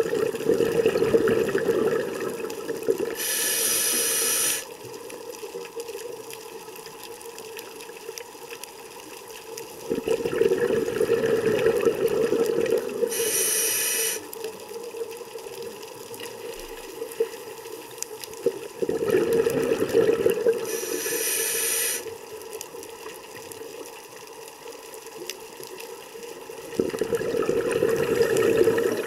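Scuba diver breathing through a regulator underwater: four long exhalations of bubbling, the first three each followed by the hiss of an inhalation, with quieter spells of about five seconds between breaths.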